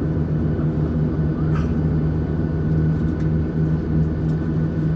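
Steady cabin drone of a Boeing 737-900ER on the ground, its CFM56-7B engines idling for taxi: a low hum with a faint thin higher tone above it.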